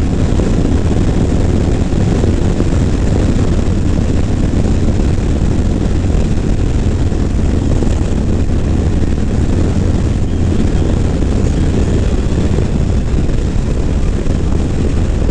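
Harley-Davidson Low Rider S's 117 cubic-inch V-twin running at steady highway cruising speed, mixed with the rush of wind over a helmet-mounted microphone. The drone holds an even level with no gear changes or revving.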